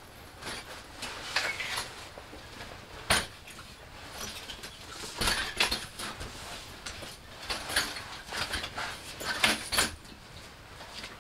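Metal-framed folding lounge chair being unfolded and set down: irregular clicks, clanks and rattles of the frame, with rustling of straw underfoot.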